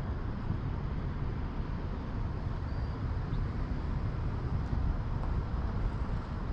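Steady low outdoor rumble with wind buffeting the microphone; no distinct event stands out.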